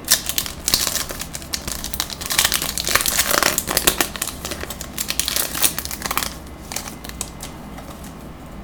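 Wrapper of a Bowman baseball card pack crinkling as it is torn open and handled: a dense run of crackles that dies away about six seconds in.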